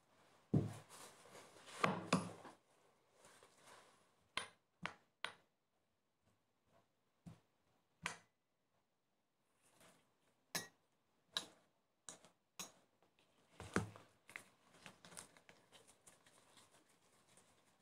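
Metal spoon clinking and scraping against a ceramic plate while mashing banana into crushed biscuit crumbs. The sound comes as irregular sharp taps and short scraping flurries with pauses between them.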